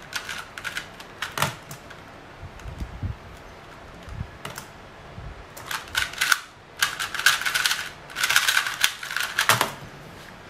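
MoYu LingPo 2x2 speedcube being turned, its layers clicking: a few quick scrambling turns in the first second and a half, then a dense rattle of fast turns for about four seconds as it is speed-solved. This ends with a sharp thump near the end as both hands slap down on the laptop to stop the timer.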